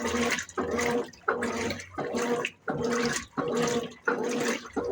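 Brastemp 17 kg washing machine agitating a load in its rinse cycle: water sloshing in regular strokes, about one every three-quarters of a second, with a steady motor hum under each stroke.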